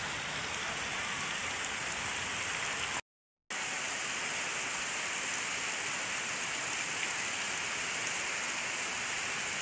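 Heavy rain pouring onto a flooded street, a steady dense hiss. The sound cuts out completely for about half a second around three seconds in.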